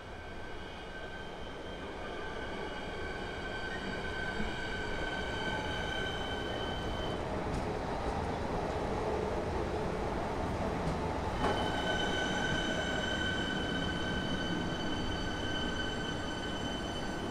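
Siemens Nexas electric suburban train rolling slowly into the platform, its running noise growing louder. Over the rumble sit steady high whistling tones that fade for a few seconds midway and then return.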